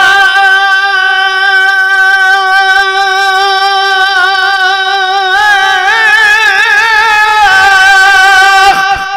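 A man singing naat (Urdu devotional verse) into a microphone, drawing one syllable out into a long high note. The note holds steady for about five seconds, then wavers in pitch for about three more before he breaks off near the end.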